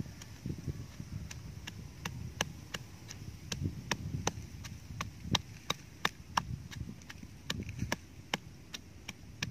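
Pestle pounding in a clay mortar: a steady rhythm of sharp knocks, about three a second, with dull thuds under them.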